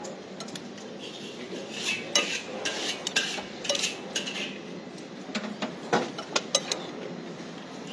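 A metal spoon scraping and clinking against a bowl of rice as food is scooped up: irregular clicks and short scrapes, busiest about two to three seconds in and again around six seconds in.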